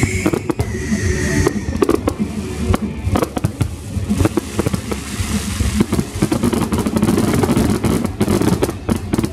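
Fireworks display: aerial shells bursting in rapid, overlapping bangs.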